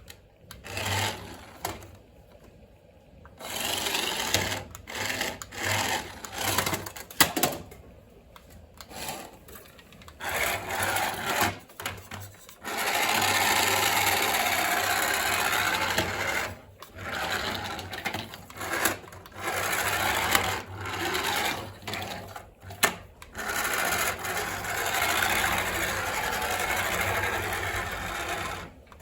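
Small electric motor of a toy remote-control car whirring in repeated bursts, starting and stopping as the throttle is worked, with two longer runs of several seconds each.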